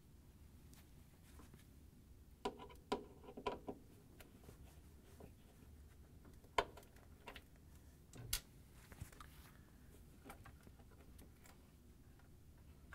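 Faint, scattered clicks and taps of a Phillips screwdriver and plastic refrigerator liner covers being handled and unclipped. There is a short cluster of clicks a few seconds in and two single clicks later.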